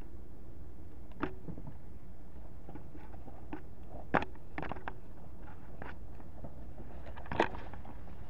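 Twigs, leaves and brush crackling and snapping as someone pushes through dense undergrowth, in scattered single snaps. The loudest snap comes about four seconds in and another near the end, over a steady low rumble.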